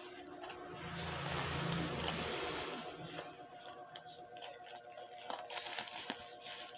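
Handling sounds: rustling and scraping with scattered sharp clicks, louder for a stretch between about one and three seconds in.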